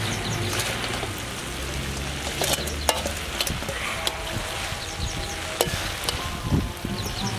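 Egg noodles frying in a large metal wok with a steady sizzle. Metal spatulas scrape and clink against the pan several times as the noodles are tossed.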